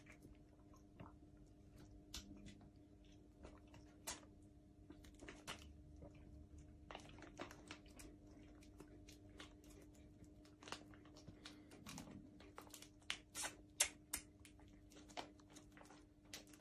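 Faint, scattered clicks and crinkles from a konjac jelly and its plastic packaging being handled and eaten close by, with a few sharper clicks near the end, over a faint steady hum.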